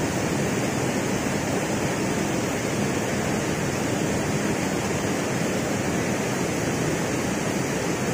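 Steady rush of stream water flowing and churning over rocks into a pool.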